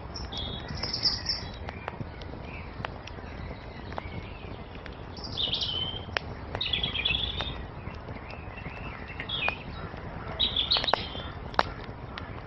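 Small birds chirping in short high phrases, a handful of times, over a crackling wood fire that gives sharp pops now and then above a steady low noise.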